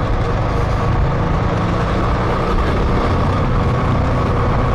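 GasGas 700's big single-cylinder thumper engine running steadily under way, with no revving.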